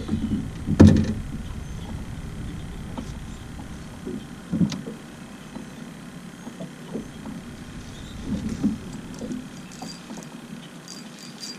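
Knocks and bumps on a small fishing boat as the angler handles his spinning rod: a sharp knock about a second in and another about four and a half seconds in, then softer bumps. Under them is a low rumble that fades away about halfway through, and there are faint ticks near the end.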